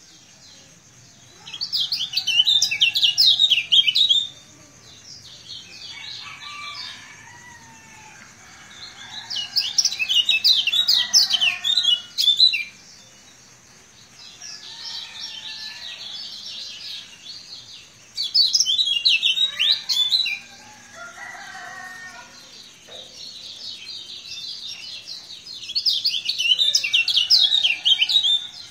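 Caged kecial kuning, a small Lombok white-eye, singing in four loud bursts of rapid, high, chattering notes about two to three seconds each, roughly every eight seconds, with softer twittering between the bursts. This sustained, frequent singing is what keepers call 'gacor'.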